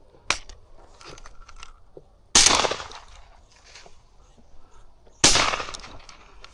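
Two shotgun blasts about three seconds apart, each with a long decaying echo, preceded by a shorter sharp crack near the start.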